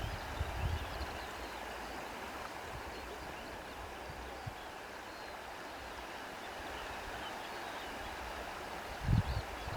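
Steady rushing of flowing water, like a stream, with a brief low thump about nine seconds in.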